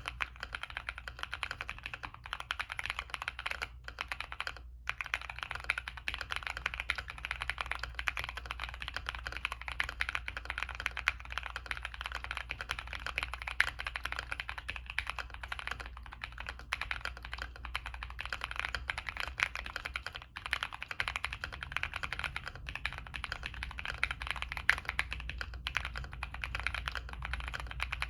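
Continuous fast typing on a Monsgeek M1 mechanical keyboard with Zenclack Pleiades switches fitted with replacement stems, on a POM plate: a dense run of keystroke clicks with brief pauses around 4 and 20 seconds in.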